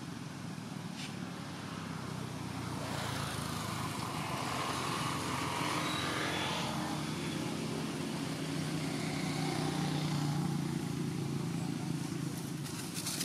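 A motor vehicle's engine running, a steady low hum that grows louder over several seconds and eases a little near the end, with a few sharp clicks just before the end.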